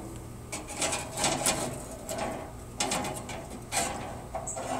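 Grill tongs scraping and clacking against a gas grill's grates as a rack of ribs is shifted, in several short bursts.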